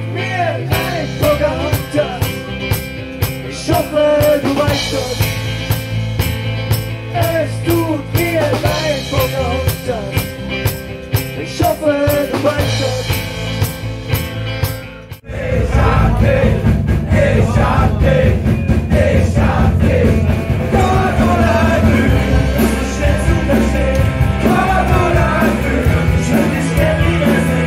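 Live rock band playing: drum kit, bass and electric guitars keeping a steady beat, with a voice singing over them. About halfway through the sound cuts abruptly to another live rock song, fuller and louder.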